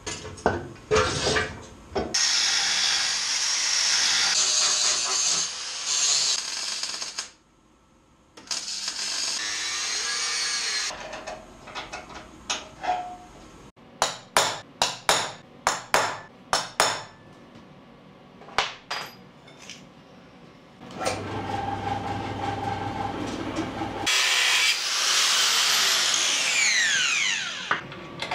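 Metalwork on steel exhaust mounts: loud spells of a power tool working metal, a quick run of about ten sharp strikes about halfway through, and near the end a power tool spinning down with a falling whine.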